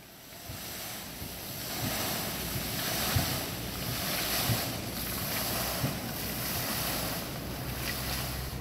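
Fountain jets splashing into their basin: a steady rush of falling water that fades in over the first two seconds.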